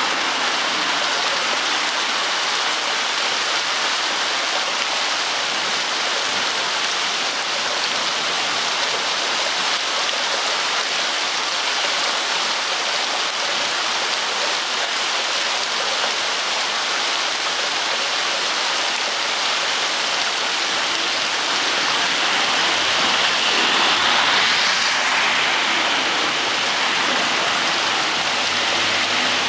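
Heavy rain falling steadily: a dense, even hiss that swells slightly a little past two-thirds of the way through.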